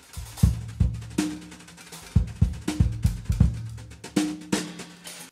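Intro music: a drum kit beat with bass drum and snare hits, cutting off suddenly at the end.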